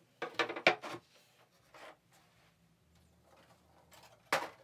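Handling noise from a 3D-printed PLA model airplane on a workbench: plastic parts rubbing and clicking together for about a second, then a single sharp knock near the end.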